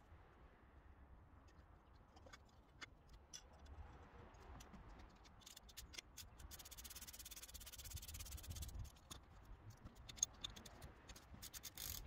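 Faint rapid clicking of a ratchet wrench for a couple of seconds in the middle, turning the threaded rod of a MacPherson strut spring compressor to decompress the coil spring. Light scattered clicks and taps from handling tools and parts come before and after it.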